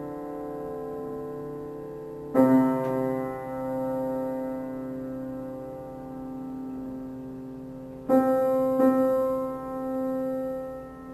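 Slow solo piano music: sustained chords left to ring and fade, with new chords struck about two seconds in and twice more near the end.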